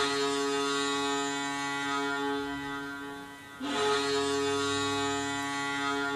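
Boston Bruins arena goal horn sounding two long, steady blasts, the second starting about three and a half seconds in after a brief gap.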